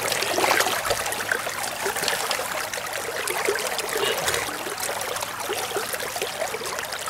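River water running and trickling steadily, with small splashes.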